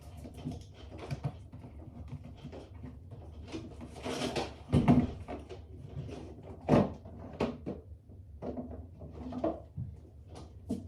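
Irregular household handling noises in a small room: scattered knocks and rustles, with two louder thumps about five and seven seconds in.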